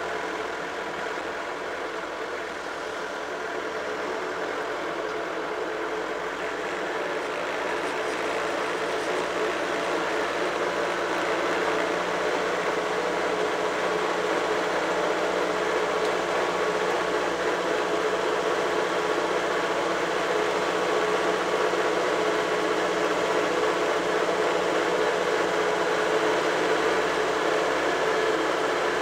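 Vintage tractor engine running, heard from on the tractor close to its upright exhaust stack. It gets louder over the first ten seconds or so as the tractor pulls away, then holds a steady note at road speed.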